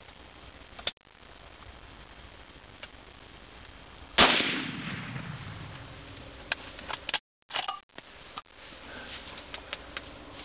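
A single scoped hunting rifle shot about four seconds in, its report rolling away over the next second or two. A few faint clicks and knocks follow.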